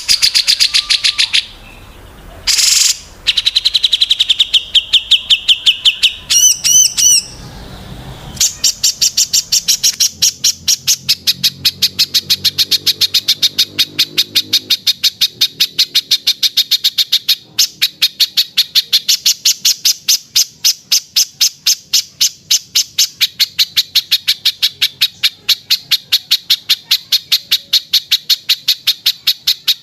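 Small songbird calling: a few short high trills and whistled notes, then a long, fast, steady run of sharp high chips, several a second.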